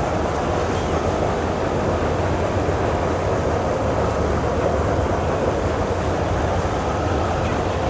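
Steady wind noise on the microphone: a continuous low, flickering rumble with a hiss above it.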